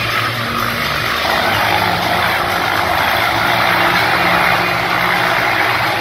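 Motorcycle engines revving continuously as the bikes circle inside a steel-mesh globe of death.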